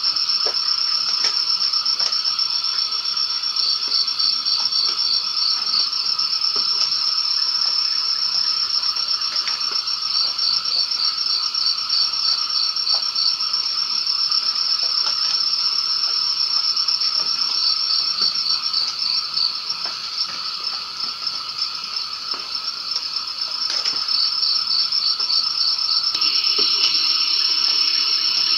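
Night chorus of crickets and frogs after rain. A steady high-pitched trill runs throughout, with fast pulsing trills coming in every few seconds over a lower steady drone of calls.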